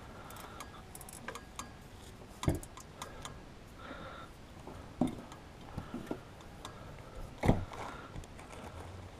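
Plastic cable ties and a plastic bag of ties being handled: scattered small clicks and crinkles, with three sharper knocks spaced about two and a half seconds apart.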